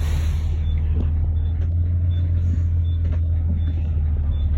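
Bus engine running with a steady low drone, heard from inside the bus, with a short hiss of air in the first half second.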